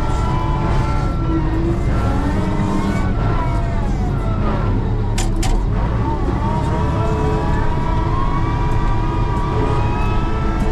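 Loader's diesel engine running under load while clearing snow, with a steady low rumble and whining tones that rise and fall as the engine and hydraulics work. A couple of sharp knocks come about five seconds in.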